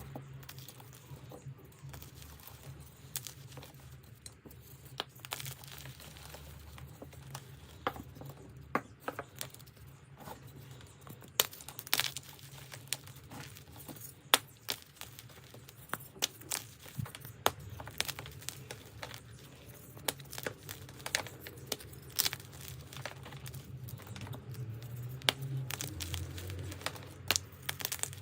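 Dyed gym chalk crunching and crumbling, with dense irregular crackles and sharp snaps that come louder now and then.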